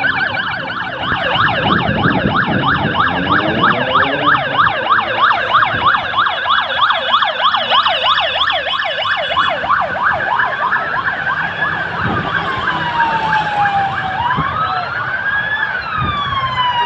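Sirens of several police vehicles in a passing convoy, sounding together. For about the first ten seconds they yelp in fast sweeps, about four a second, then change to slower wails rising and falling, with vehicle engines running underneath.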